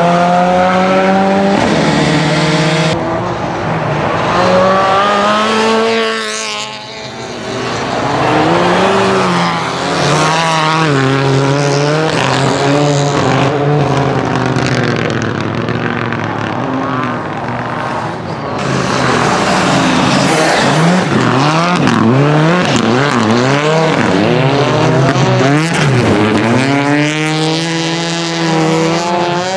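Renault Clio N5 rally car's engine revving hard. Its pitch climbs and drops again and again as the car goes through the gears, with a brief drop in loudness about a quarter of the way through and a run of short, quick rises in pitch later on.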